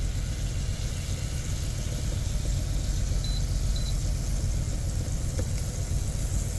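Semi-truck's diesel engine idling, a steady low rumble heard inside the cab. Two short faint high beeps sound a little past three seconds in.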